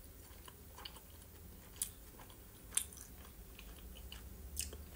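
Quiet close-miked chewing of a soft boiled varenik dumpling with mayonnaise, with a few short sharp mouth clicks.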